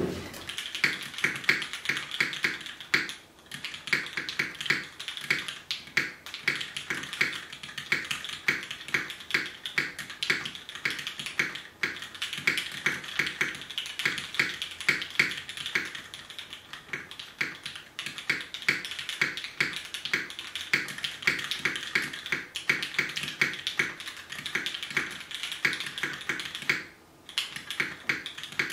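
Sessanta and Unikorn 60% mechanical keyboards typed on at the same time, one hand on each: a fast, continuous patter of keystrokes. It breaks off briefly twice, once about three seconds in and once near the end.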